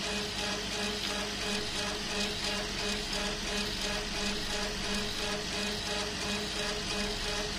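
CO2 laser engraver running while it raster-engraves wood: the laser head is driven back and forth in quick passes, making a rhythmic pulse of a few strokes a second over a steady hiss and hum.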